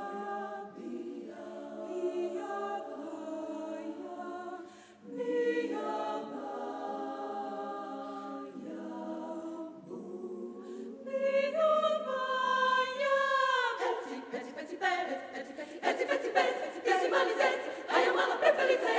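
Women's chamber choir singing a cappella: held chords in several parts with short breaks between phrases, then the voices slide downward together. Near the end the singing turns louder and busier, with many sharp percussive sounds among the voices.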